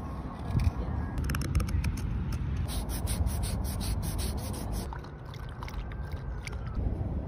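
Wooden spoon being worked by hand: a few sharp knife-on-wood clicks, then sandpaper rubbed back and forth along the carved handle in a quick rhythmic scratching of about five strokes a second. A steady low rumble lies under it.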